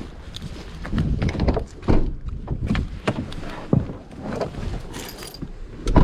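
Irregular knocks, thuds and clatter, with a loud thump about two seconds in and another near the end.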